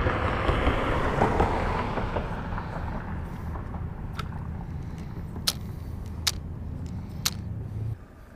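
A road vehicle passing, loudest at first and then fading away, over a steady low hum that cuts off abruptly near the end. A few sharp clicks come in the second half.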